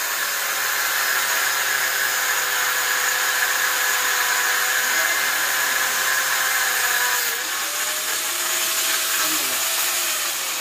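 Handheld angle grinder cutting through steel reinforcing rod: a loud steady motor whine over a harsh grinding hiss. About seven seconds in, the cut breaks through and the motor pitch rises as the load comes off, then begins to fall near the end as the grinder is lifted away.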